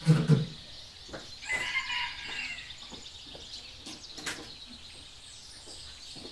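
Farm ambience. A low animal call cuts off right at the start, bird calls follow about two seconds in, and a sharp click comes a little after four seconds, all over a faint steady high insect drone.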